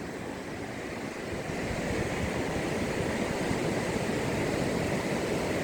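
Ocean surf washing onto the beach, a steady rushing that grows a little louder about one and a half seconds in.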